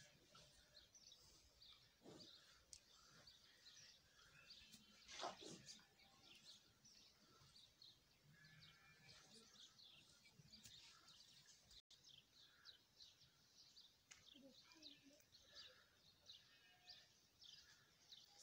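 Faint chirping of small birds, many short calls a second, with one louder knock about five seconds in.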